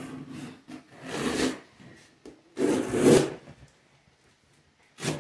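Packing tape and cardboard on a large shipping box being cut and torn open: two loud scraping, tearing strokes about a second and a half apart, then a short knock near the end.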